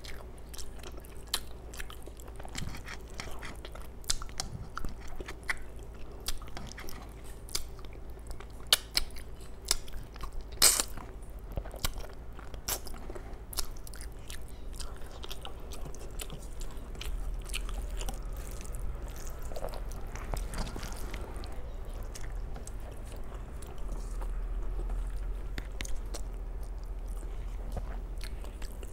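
Close-miked chewing and wet mouth clicks of a person eating rice with dal and curry by hand. Many small clicks run throughout, with one sharp louder click about a third of the way in, over a steady low hum.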